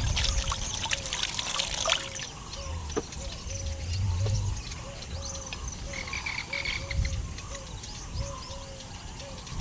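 An animal's short call repeats evenly, about twice a second, throughout. For the first two seconds water splashes and drips in a clay pot where drumstick pods are being washed, and small bird chirps come and go.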